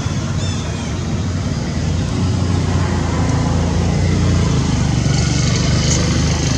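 A motor vehicle's engine running steadily, heard as a low hum that grows a little louder about two seconds in. A single short high chirp sounds about half a second in.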